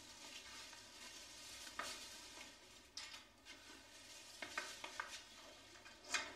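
Faint crinkling and rustling of a thin plastic carrier bag and paper being handled, with a few brief sharper rustles scattered through.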